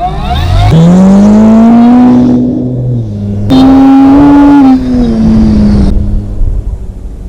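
RC model biplane's motor and propeller heard from a camera on board: the motor throttles up with a sharply rising whine, holds high, eases off, throttles up again a little past halfway, then winds down.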